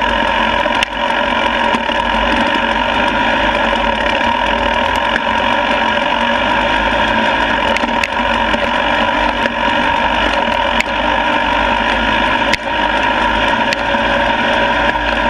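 Enduro motorcycle engine running at a fairly steady pitch while riding a rough trail, heard up close from a bike-mounted camera, with a few sharp knocks from bumps.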